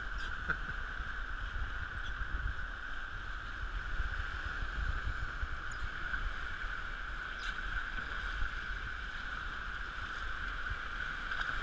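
Whitewater of a river rapid rushing steadily around a rowed raft, with a low rumble underneath.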